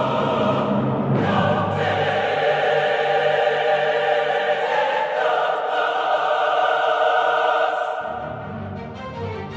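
Background music: a choir singing sustained chords over orchestral accompaniment, with a deeper bass part coming in near the end.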